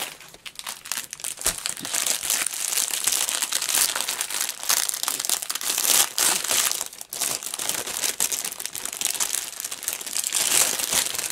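Clear plastic wrapping crinkling and crackling as a plastic-wrapped bundle of diamond painting drill bags is handled and opened, a dense, irregular run of small crackles.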